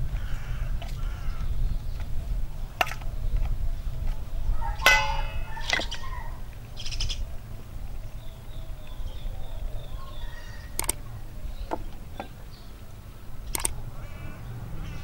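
A metal fork clinking against a stainless-steel mixing bowl in scattered sharp clicks. A bird calls loudly about five seconds in and briefly again a couple of seconds later, over a steady low rumble.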